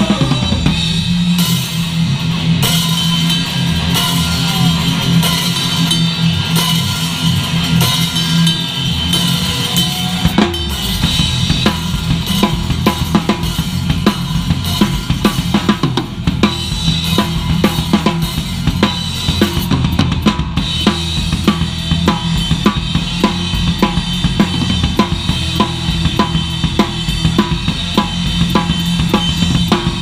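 Horror punk band playing live: a loud drum kit with bass drum, snare and cymbals drives a steady beat over sustained bass guitar and electric guitar notes.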